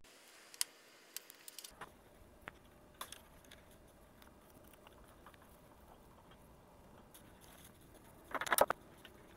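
Faint scattered clicks and small taps of bolts and metal machine parts being handled during assembly, with a louder brief clatter near the end.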